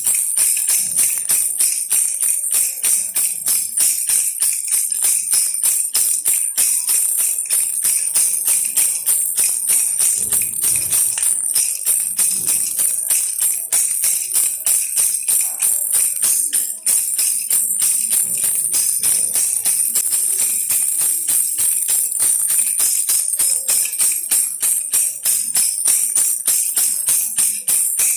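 Baby rattle shaken steadily and quickly, a continuous bright jingling of small beads or bells.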